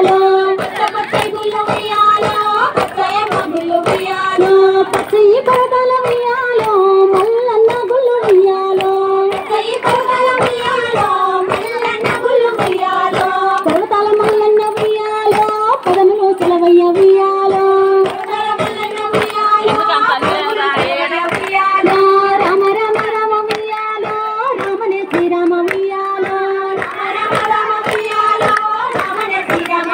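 A Bathukamma folk song sung by female voices, the melody carried without a break, with steady rhythmic hand clapping from the dancers circling the flower stacks.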